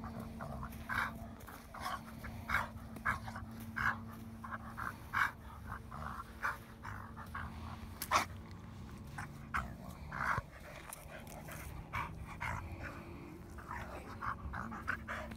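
Pit bull rolling on its back in the grass, with short breathy sounds two or three a second and grass rustling under it.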